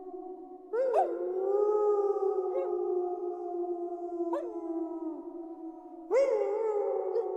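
A pack of wolves howling in chorus: several long, overlapping howls held at different pitches. A new howl swoops up sharply about a second in and another near the end, with short rising yelps in between.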